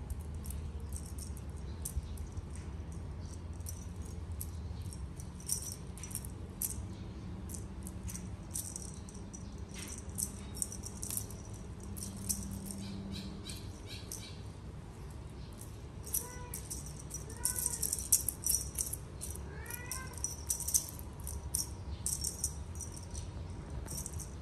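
A cat gives three or four short, arching meows about two-thirds of the way through, among repeated rattling and clicking over a steady low hum.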